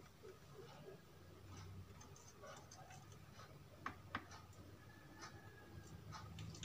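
Near silence with faint clicks from handling a circuit board and its wires: two sharp ticks close together about four seconds in.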